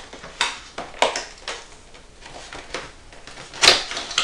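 Cardboard boxes handled: a keyboard's retail box scrapes and rustles against a cardboard shipping carton in a few irregular strokes, the loudest near the end.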